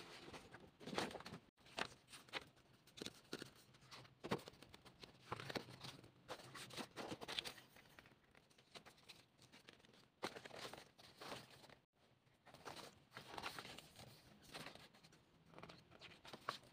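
Paper being handled: an album's folded poster and the pages of its photobook rustling and crinkling as they are moved and turned, in many short, irregular rustles.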